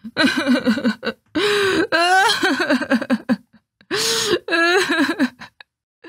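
A woman's voice acting out loud, exaggerated wailing and sobbing ('uheoheoheong, uheong uheong, uuuuung'), in four drawn-out bouts with wavering pitch.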